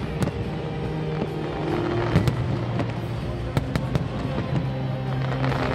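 Aerial fireworks bursting at an irregular pace, several sharp bangs, some in quick pairs. Music plays steadily underneath.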